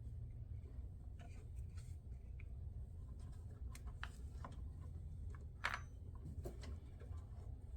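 Faint scattered clicks and light metallic taps of a wrench and the battery cable's bolt and clamp being worked loose, with one sharper click about five and a half seconds in, over a low steady rumble.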